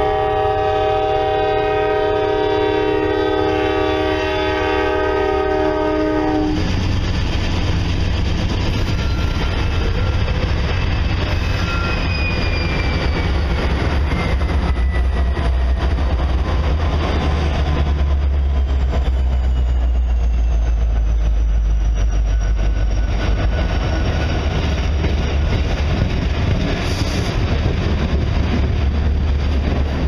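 Norfolk Southern freight train passing close by: the locomotive's multi-note air horn holds a chord and cuts off about six and a half seconds in. Then the lead diesel locomotives rumble past and the train's cars roll by with steady wheel-on-rail noise.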